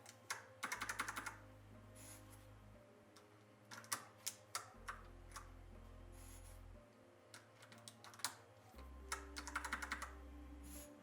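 Keys of a mechanical keyboard clicking as newly fitted keycaps are pressed down onto the switches, in short flurries of rapid clicks with single clicks between.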